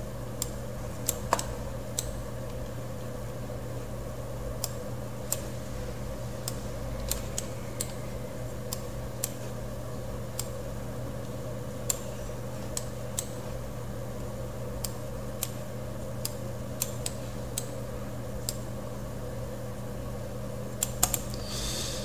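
Scattered single clicks of a computer mouse and keyboard, a second or more apart, with a quick cluster near the end, over a steady low hum.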